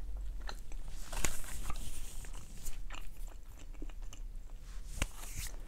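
A person chewing a mouthful of vegan empanada close to a clip-on microphone: soft crunching and wet mouth clicks, with a sharper click about a second in and another near the end.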